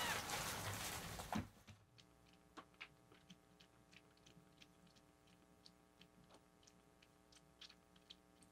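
A rustling noise that cuts off about a second and a half in, then a newborn kitten suckling on a milk bottle's nipple: faint, irregular wet clicks, a few a second.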